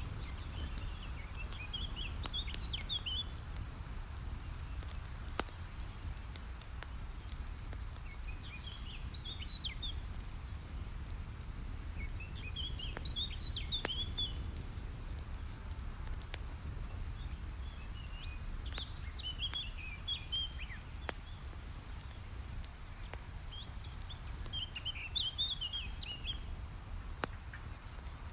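A songbird sings a short chirping phrase five times, about every five or six seconds, over a steady low rumble of a campfire that gives a few sharp crackling pops.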